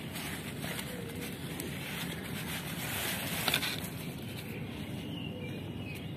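Hands picking through loose potting soil and dry turmeric stalks: a low, even rustle and scrape, with one sharper knock about three and a half seconds in.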